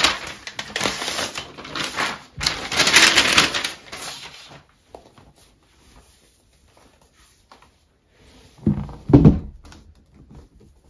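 Thin protective wrap being peeled and crinkled off a new MacBook Air, rustling loudly for about four seconds. Near the end come two dull thumps as the laptop is handled on a leather desk mat.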